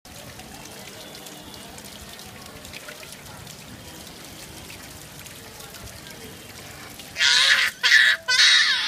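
Steady patter of falling rain, then about seven seconds in a toddler's three loud, high-pitched bursts of laughter.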